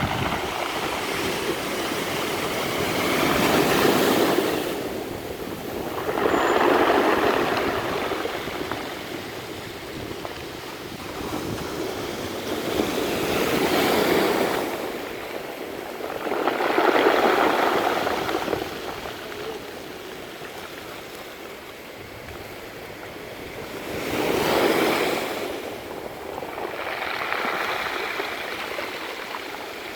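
Sea waves surging up a pebble beach and drawing back, the pebbles rattling and hissing. The sound swells and fades in six surges, every few seconds.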